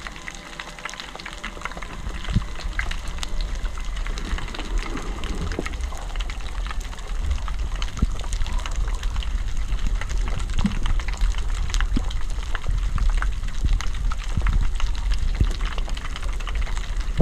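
Underwater sound: a constant dense crackling over a deep rumble that swells about two seconds in. Scattered through it are several sharp, low knocks, which the diver takes to be made by fish trying to scare him away.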